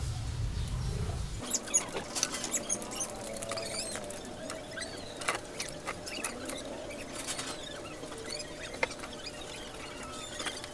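A cloth being rubbed over a wet motorcycle's bodywork, giving a scatter of quick little squeaks and rubbing ticks. Before that, a low rumble of camera handling stops about a second and a half in.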